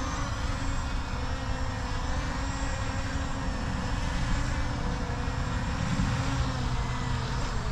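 Wind buffeting the microphone: a steady, choppy low rumble, with a faint steady hum beneath it.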